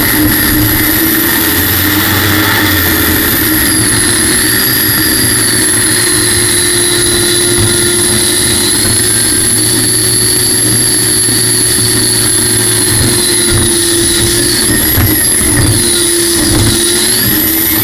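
Helicopter gas-turbine engine of a racing jet boat running at speed: a loud, steady high-pitched whine that dips slightly in pitch a couple of times, over a low rumble.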